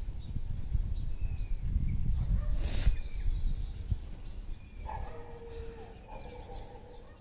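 Birds chirping over a low, uneven rumble of wind on the microphone. About five seconds in, a lower drawn-out call joins for the last two seconds while the rumble fades.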